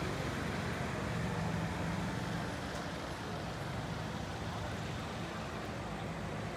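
Steady low hum of a motor vehicle running on a road, over even outdoor background noise.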